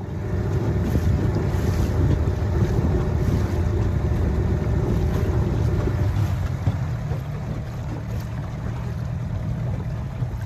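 Steady low rumble of wind buffeting the microphone on a small boat moving across the water, easing a little after about six seconds.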